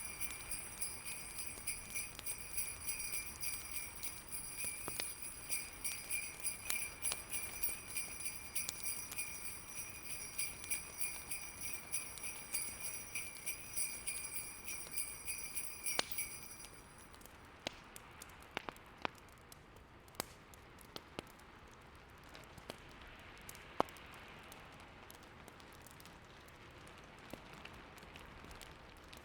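Sleigh bells jingling in a steady, rhythmic shake for roughly the first sixteen seconds, then stopping. After that, fireplace crackles pop here and there over a soft steady hiss.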